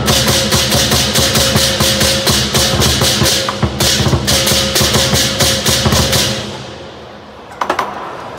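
Lion dance percussion: a large Chinese lion drum beaten with cymbals clashing about four times a second. It breaks off briefly near the middle, stops about six seconds in and rings away, then a couple of lone strikes come near the end.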